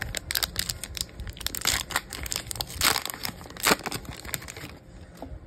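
Trading-card pack wrapper crinkling and tearing as it is pulled open by hand, in quick crackly bursts that die away about a second before the end.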